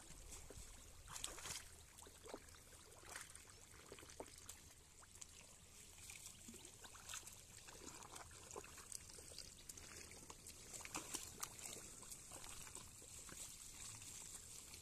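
Faint water sounds of a cast net being hauled in through shallow muddy water: small scattered splashes, with water trickling and dripping off the wet net.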